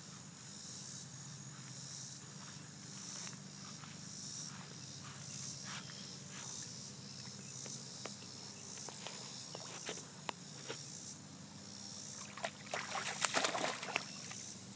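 Steady chorus of insects with a few small water ticks, then about twelve seconds in a hooked catfish thrashes at the water's surface, splashing loudly for about two seconds.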